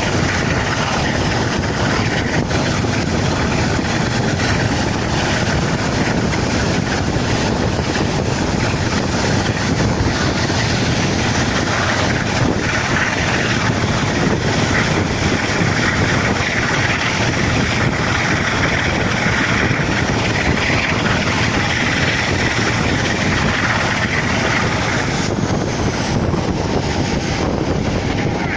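Class 45 'Peak' diesel locomotive's Sulzer twin-bank engine working hard under power (a 'thrash'), heard from an open carriage window behind it with heavy wind buffeting the microphone. The noise is steady and loud throughout.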